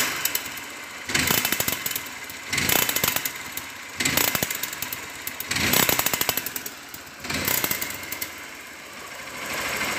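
Honda Bros 150's single-cylinder four-stroke engine running and blipped repeatedly, rising about every one and a half seconds, with a rapid ticking rattle in each rev. This is the abnormal engine noise that is later traced to the cylinder head.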